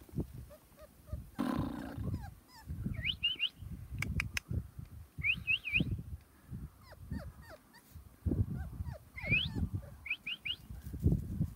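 Australian Shepherd puppy giving short, high squeaky whimpers in little groups of two or three, several times. Low scuffing footsteps on grass and dry leaves sound between them.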